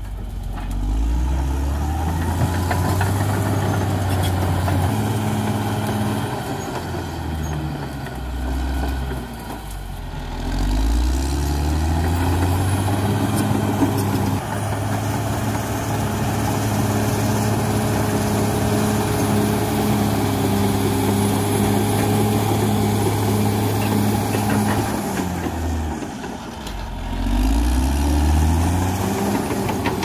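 Caterpillar D6R XL bulldozer's diesel engine working under load. Its speed sags and climbs back several times, holds steady for a long stretch in the middle, then dips once more near the end before rising again.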